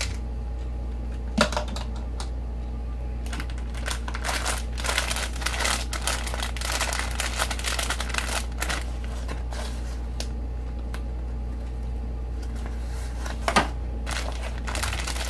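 Craft-kit packaging and small tools being handled at close range: plastic crinkling and light clicking from about four to nine seconds in, with a sharp tap just over a second in and another near the end, over a steady low hum.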